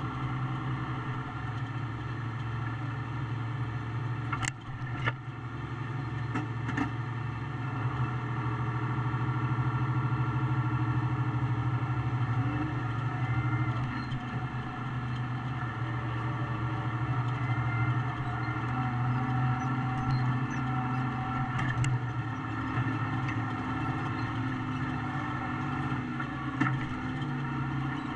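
Tractor engine running steadily while pulling a loaded forage wagon, heard from inside the cab, with a few sharp rattles and knocks from the rig along the way.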